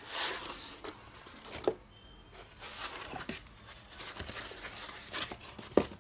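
Rustling and scraping of laptop packing: black foam end-caps being pulled off a laptop wrapped in a white foam sheet, in an open cardboard box. There are two short knocks, one about a second and a half in and a louder one near the end.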